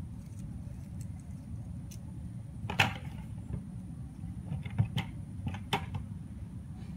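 Steady low outdoor rumble with several short, sharp clicks, the loudest nearly three seconds in and a few more around five to six seconds.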